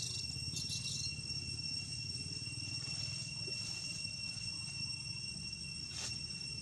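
Insects droning steadily at a high pitch over a low rumble, with a few short hissy bursts about a second in and again near the end.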